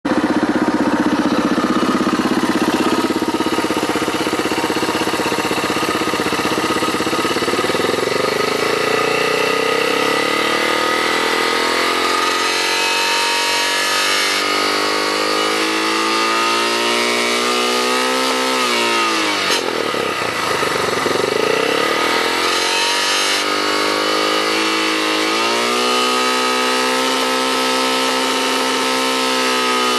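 Suzuki DR650 single-cylinder engine being revved: it climbs to high revs and holds there, falls off and picks up again twice in the second half. In the 5000–6000 rpm range the owner hears a questionable rattle from it.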